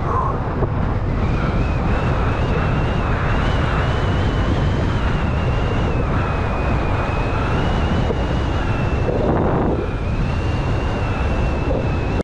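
Wind buffeting the microphone during a fast downhill run, with steady rushing and rumbling noise and a thin high whine that wavers slightly in pitch throughout.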